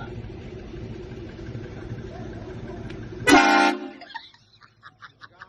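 A steady low rumble, then about three seconds in a single loud blast of a train-style air horn, lasting about half a second and cutting off quickly.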